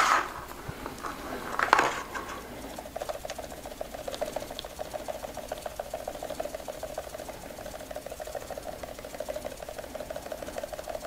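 Two short hisses of a pump spray wetting the model with fixative, then from about three seconds in the steady, fast-pulsing buzz of a Grasmaster electrostatic grass applicator sifting long static grass fibres onto the glued base.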